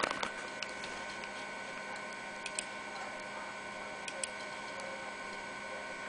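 Steady hum and whine of an IBM PS/2 P70 portable computer running, with a few light clicks as it is operated, including two quick pairs about two and a half and four seconds in.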